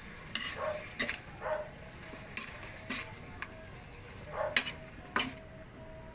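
A metal spatula scrapes and clacks against a wok about a dozen times at an uneven pace as chicken pieces are turned, over the steady sizzle of the chicken frying in oil.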